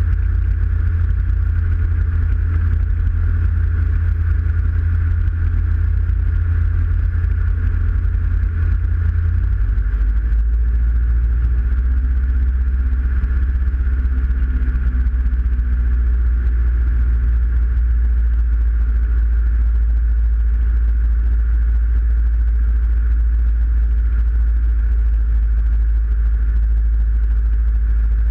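Diamond DA20 light aircraft's piston engine and propeller droning steadily, heard inside the cockpit on final approach. About ten seconds in, the low drone drops in pitch and holds there as power is reduced for landing.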